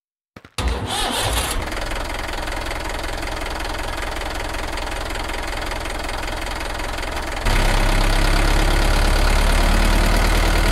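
Diesel engine running with a steady rhythmic knock, starting abruptly about half a second in. About seven seconds in it changes to a louder, deeper engine sound, then cuts off suddenly at the end.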